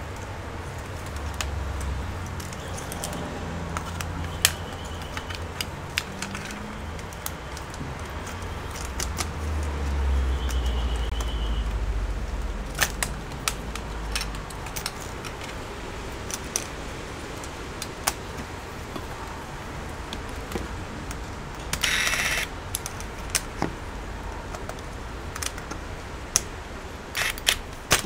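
A laptop motherboard being handled and fitted back into its plastic chassis: scattered clicks and small knocks of board, parts and cables, with a low handling rumble in the first half and a short scraping rustle later on.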